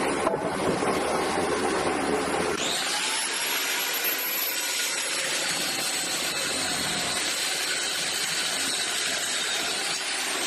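Electric woodworking power tool whose motor spins up about two and a half seconds in with a quick rising whine, then runs at a steady high speed. Its pitch drops a little near the end.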